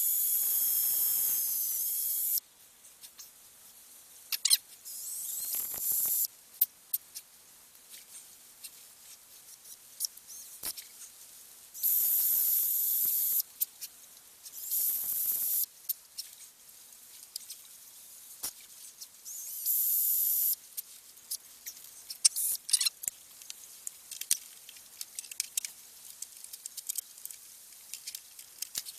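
A drill fitted with a metal bit boring into a hard wooden frog in five short bursts of a second or two each, a high, hissing grind. Small knocks and scrapes of handling come between the bursts.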